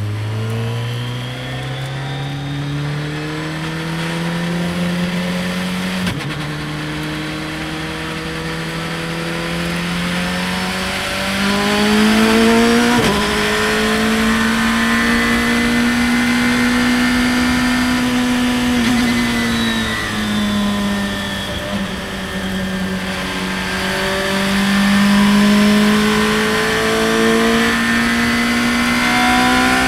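Radical open-cockpit race car's engine heard onboard, accelerating hard through the gears. There are quick upshifts about six and thirteen seconds in, each dropping the pitch before it climbs again. The car holds high revs, eases briefly around twenty seconds, then pulls up again.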